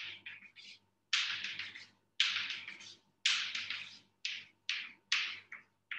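Chalk on a blackboard: about ten quick strokes drawing lines, each a short scraping swish that starts sharply and fades. Three short ones come first, then longer ones about one a second, then several shorter ones near the end.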